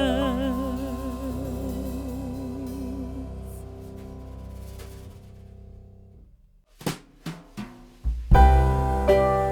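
Background music: a held, wavering note fades out as one track ends, then after a brief pause a few drum hits lead into a new track with keyboard and drums about eight seconds in.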